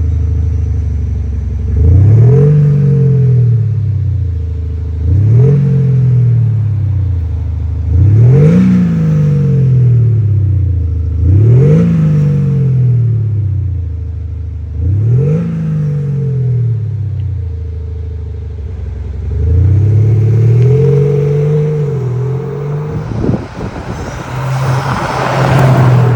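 Synthesised sports-car engine sound from an iXsound active electronic exhaust speaker on a diesel BMW X5 G05, blipping the revs about five times, each a quick climb in pitch and a slower fall. Then a longer, wavering rev, a brief rough noisy stretch, and a steady tone near the end.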